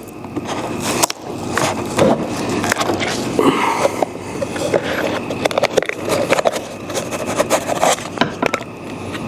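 Scraping, knocking and cracking as a screwdriver pries the jigsawed cut-out piece of backing out of a deer mount's form, with many sharp clicks throughout.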